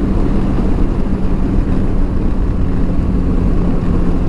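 Yamaha Tracer 9 GT's inline three-cylinder engine running at a steady cruising speed, an even drone, with wind rumble on the microphone.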